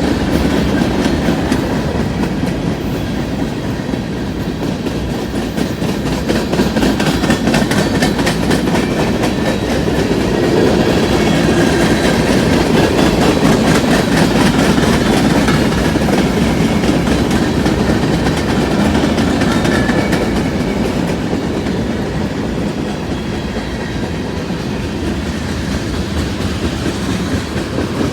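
Freight cars of a manifest freight train rolling past at speed: a steady rumble with a constant rapid clickety-clack of wheels over rail joints.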